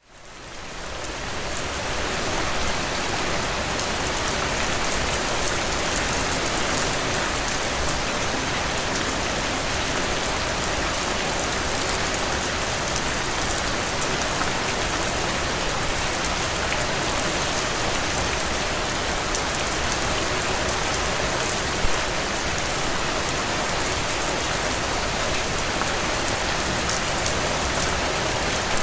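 Heavy rain falling and pattering on surfaces: a steady, dense hiss that fades in over the first two seconds, with one brief louder knock about 22 seconds in.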